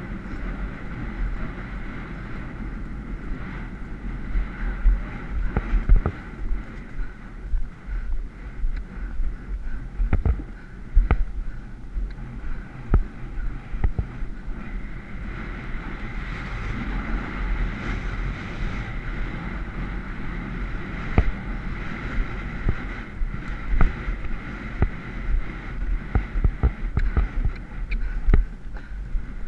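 Wind buffeting a helmet-mounted camera's microphone as a horse gallops cross-country, a steady low rumble broken by frequent irregular thuds from the horse's hooves on the turf.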